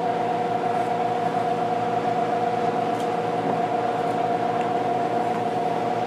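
Furnace blower with a capacitor-run motor running steadily, a constant hum with a high steady whine, its inlet fully blocked to simulate dirty filters, which pushes the run capacitor's voltage above its 370-volt rating.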